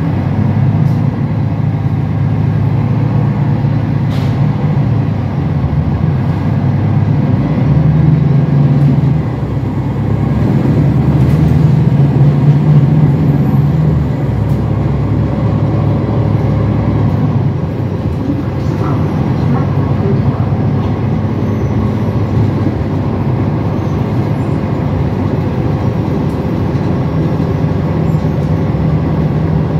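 Interior of a Mercedes-Benz Citaro diesel city bus under way: the engine's low drone and road noise fill the cabin. The drone swells twice in the first half as the bus pulls away and eases off, then settles to a steadier level.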